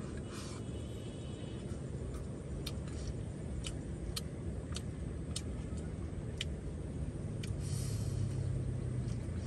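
Chopsticks clicking against a ceramic rice bowl while eating: about a dozen sharp, scattered taps over a steady low rumble that swells a little near the end.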